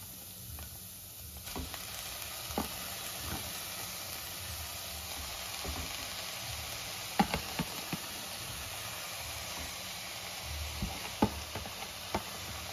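Chopped red amaranth leaves tipped into a steel kadhai of hot oil and fried onions, sizzling steadily from about a second and a half in. A few sharp knocks against the pan, loudest about seven and eleven seconds in.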